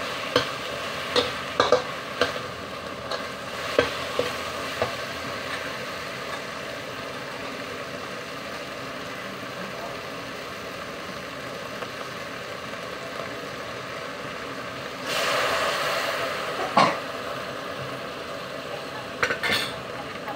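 Sliced okra sizzling in a wok, with a metal spatula clinking and scraping against the pan several times in the first five seconds. About fifteen seconds in, the sizzle swells louder for a second or so, followed by a sharp clink, and a few more clinks come near the end.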